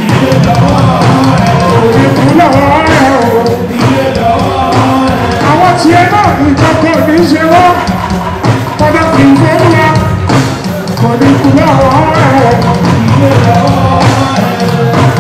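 Live fuji music played loud through a PA: a man sings a wavering melody into a handheld microphone over a steady backing band.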